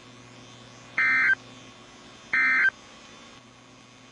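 Emergency Alert System end-of-message signal: two short bursts of SAME digital data tones, each about a third of a second long and about 1.3 seconds apart, over a faint steady hum.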